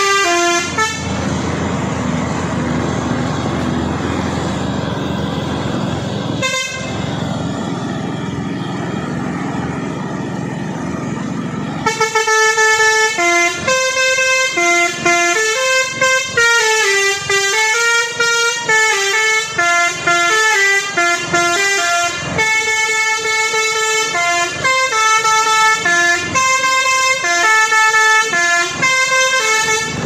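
A Mitsubishi Fuso truck's diesel engine running for about ten seconds, then its telolet musical air horn playing a tune of short notes that step up and down in pitch.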